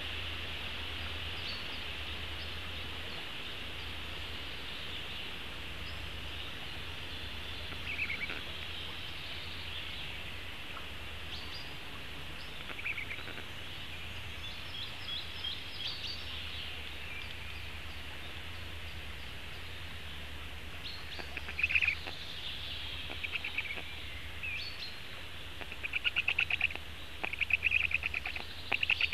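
Wild birds chirping and calling in the forest around a stork-nest webcam, over a steady high hiss and a low hum. Scattered short chirps come through the first part, and a run of loud, quick repeated chirps near the end.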